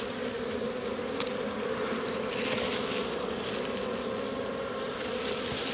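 Wild honeybee colony buzzing in a steady, even hum as its nest is opened and the comb taken out.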